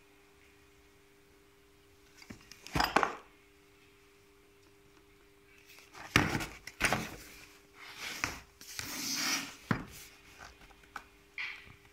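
Cardboard product box being handled and turned over on a wooden table: scraping, rustling and knocks, one short burst about three seconds in and a busier stretch from about six to ten seconds. A faint steady hum sits underneath.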